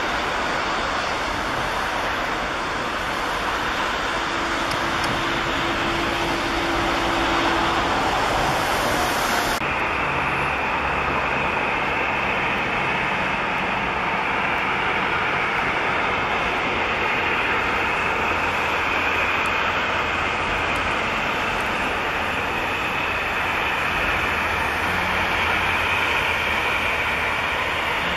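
Airbus A320-family jet engines at takeoff power on a wet runway, a steady broad roar. About ten seconds in it cuts sharply to a Bombardier Dash 8 Q400's turboprops and six-blade propellers droning steadily as it approaches, touches down and rolls out.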